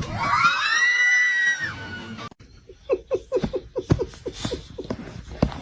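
A long high-pitched cry that rises and then holds for about two seconds, followed by a run of quick laughter, about four bursts a second.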